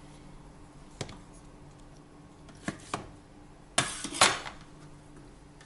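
Knife slicing tomato on a plastic cutting board: about five sharp knocks of the blade striking the board, spaced unevenly, with the loudest pair close together near the end.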